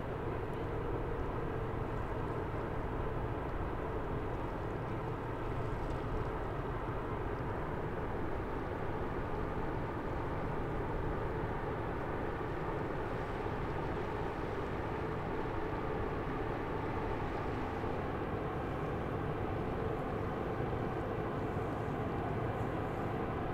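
Diesel engine of a passing bulk carrier, droning steadily: an even low rumble with a faint hum running through it.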